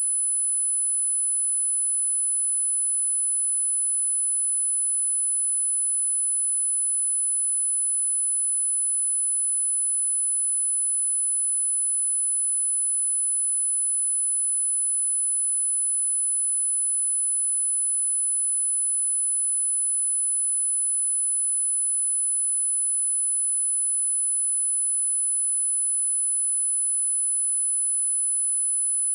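Pure 10038 Hz sine-wave test tone: a single high-pitched steady whistle that does not change in pitch or level. It is used as a speaker test and speaker-cleaning tone.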